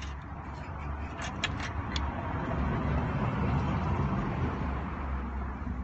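Steady low hum with a rushing noise that swells and eases off over a few seconds, of the kind a running vehicle makes.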